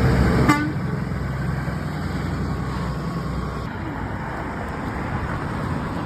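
Road traffic: a heavy vehicle's low engine drone passes close and drops away about half a second in, leaving a steady roar of passing traffic.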